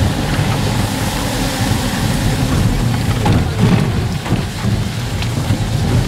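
Steady road noise of a car rolling slowly over a rough bridge deck and onto gravel, heard from inside the cabin, with a few faint ticks partway through.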